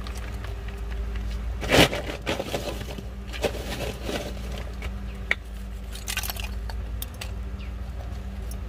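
Irregular scraping and cracking handling noises, the loudest a sharp crack about two seconds in, over a steady low hum.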